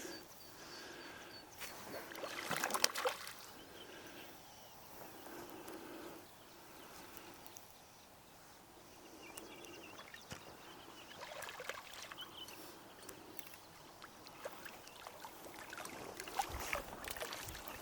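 Faint water sloshing and splashing, with a few louder splashes about three seconds in and again near the end.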